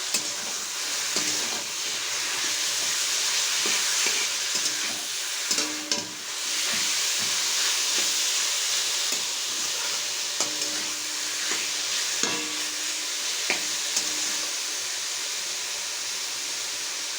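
Minced chicken sizzling in hot oil with onions and tomato as it is stirred and sautéed. The utensil knocks against the pan every few seconds with a short metallic ring.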